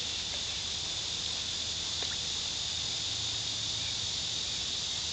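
Steady insect chorus, a constant high-pitched trill, with a faint tick about two seconds in.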